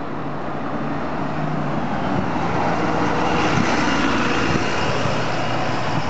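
A bus driving past close by: engine and tyre noise grow steadily louder and peak about three to five seconds in as it passes.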